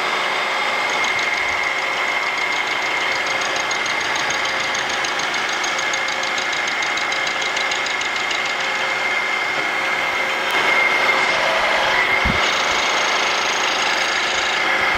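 Milling machine running with a 3/4-inch corner-rounding end mill cutting into a bronze block, taking a pass about fifty thousandths deep: a steady machining sound with a constant high whine, getting a little louder about two-thirds of the way through.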